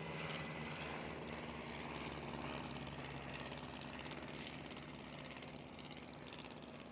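Propeller-driven biplanes' piston engines droning steadily in flight, fading slightly toward the end.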